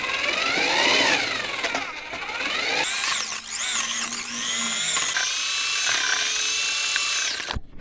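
Electric Draper paddle mixer churning self-levelling floor compound and water in a bucket, its motor whine rising and falling in pitch as the speed changes. It cuts off suddenly near the end.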